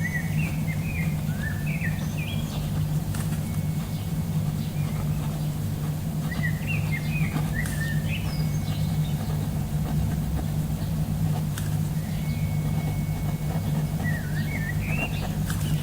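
Birds chirping in three short runs of quick, rising and falling notes, over a steady low hum that is the loudest sound throughout. A few faint ticks.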